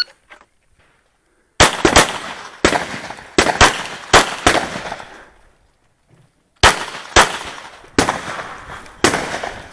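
Semi-automatic pistol firing a stage string: about seven quick shots, a pause of about two seconds, then four more spaced further apart, each shot trailing off in a short echo.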